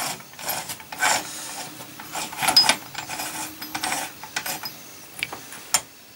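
Steel gears and shafts of an opened motorcycle gearbox turned and rocked by hand with first gear selected. Metal-on-metal scraping comes in irregular bursts, with a few sharp clicks, easing off near the end.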